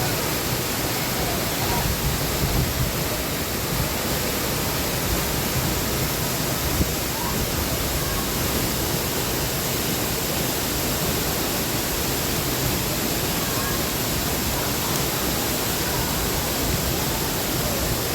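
Steady rushing noise of a 75-foot rainforest waterfall pounding into its pool, loud and even.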